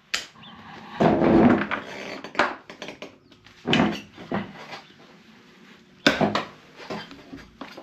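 A breaker bar and socket clanking and knocking on a motorcycle's 32 mm rear axle nut as they are fitted and levered to break the nut loose. There are several separate metallic knocks, the loudest about a second in and another near six seconds.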